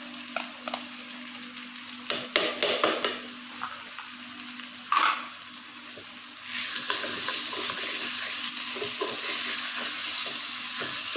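Chopped garlic frying in oil in a steel pan, with a spoon clicking and scraping as red chili paste is tipped in from a plastic bowl. About six and a half seconds in the sizzle turns louder and steady as the paste is stirred through the hot oil with a wooden spatula.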